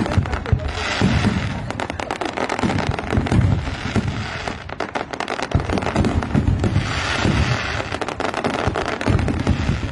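Fireworks display: a dense, rapid crackling of many small bursts, with repeated heavy low booms from larger shells going off among them.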